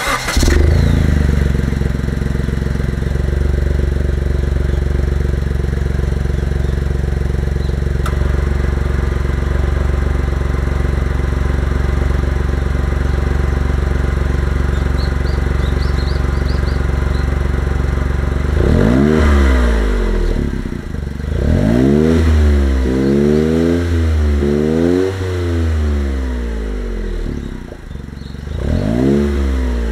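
Honda S660's 658 cc turbocharged three-cylinder engine running through a TRUST GReddy Comfort Sports GT-S rear exhaust. It idles steadily for the first part, then from about two-thirds of the way through it is blipped repeatedly, each rev rising and falling in pitch.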